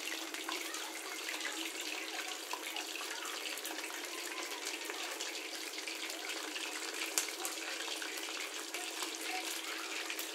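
A pot of milkfish sinigang soup boiling on a gas stove: steady bubbling and hiss, with a faint even hum underneath.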